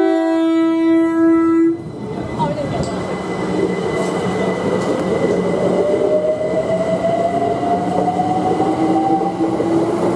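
London Overground Class 378 electric train sounding its horn, a short higher note then a held lower one, for about two seconds. It then pulls away, its traction motors whining in a slowly rising pitch over the rumble of the wheels as it accelerates.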